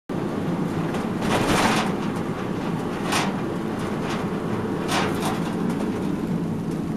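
Car interior noise while driving: steady engine and tyre rumble heard from inside the cabin on a wet road, with three brief swishes.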